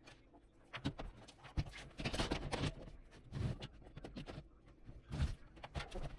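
Irregular clicks, knocks and short rustles of hands handling computer parts during a PC teardown and upgrade, busiest about two seconds in and again just past five seconds.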